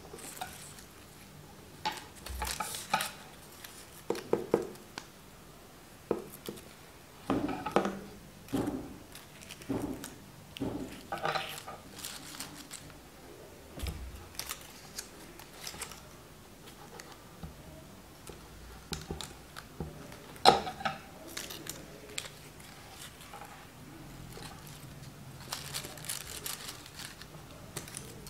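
Pink paper flower petals rustling and crinkling in short, irregular bursts as they are handled and pressed together, with one sharp tap about twenty seconds in.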